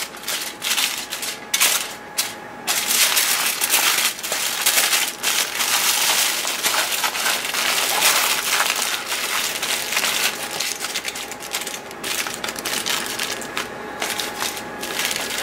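Aluminium foil crinkling and crackling as it is folded and rolled by hand into a tight packet, a dense run of irregular crisp crackles that is loudest about halfway through.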